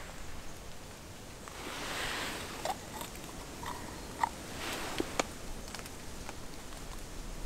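Scattered light clicks and knocks with a few soft rustling swells, as of small camping gear being handled.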